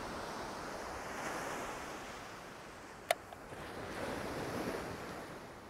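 Ocean surf breaking and washing up the beach, swelling and easing with the waves. A single sharp click comes about three seconds in.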